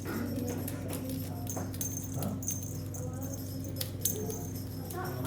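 Steady low room hum with faint background voices, and scattered light clicks and jingling.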